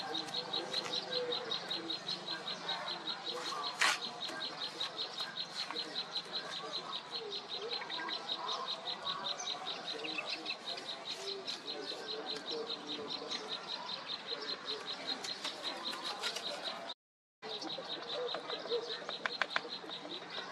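A steady, rapid train of high chirps, several a second, from a small wild creature, cutting out briefly near the end. Two sharp taps, most likely the mason's trowel striking brick, come at the very start and about four seconds in.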